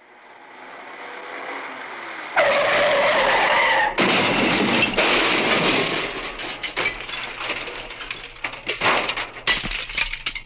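Car crash sound effect: a sound swelling louder, then a tyre screech for about a second and a half, then a loud crash about four seconds in, followed by breaking glass and debris clattering and tinkling for several seconds as it dies away.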